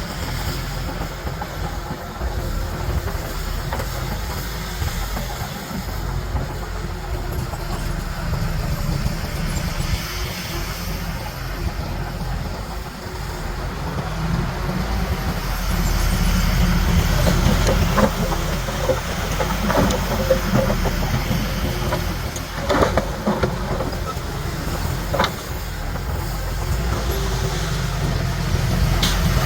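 Komatsu D31P bulldozer's diesel engine running under load with a steady low rumble that swells in the middle. It is joined by several sharp clanks and knocks about two-thirds of the way through.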